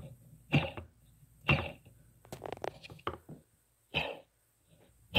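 DYS Samguk WEI 2600kv brushless drone motors spun by hand in about half a dozen short flicks, each a brief rattling whirr from worn-out bearings.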